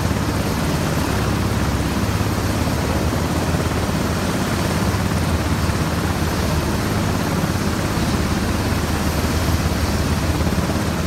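MH-60S Seahawk helicopters running on the flight line: a steady rotor and turbine drone with a strong low hum, fading out at the very end.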